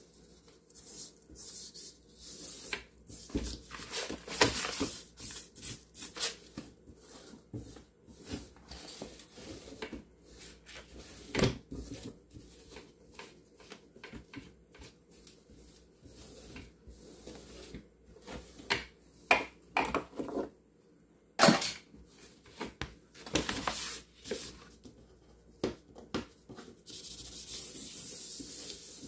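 A sponge wiping and rubbing across the bottom of a kitchen drawer in irregular strokes, with a couple of sharper knocks along the way.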